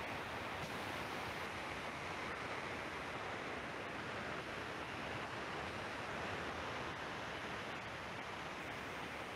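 Steady hiss with nothing else over it: the background noise of an open microphone.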